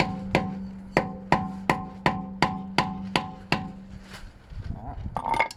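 Hammer tapping on metal at about three blows a second, each with a ringing note, knocking back the bent-over lip of a driveshaft axle nut. The tapping stops about three and a half seconds in, followed by a short metallic clink near the end.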